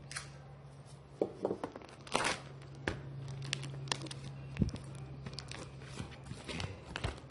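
Packing material being torn and crinkled by hand, with scattered clicks and knocks of handling, over a steady low hum.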